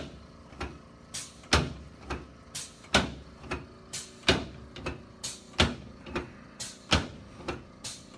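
A series of short, sharp knocks or clicks, about two a second and not quite evenly spaced, some louder than others.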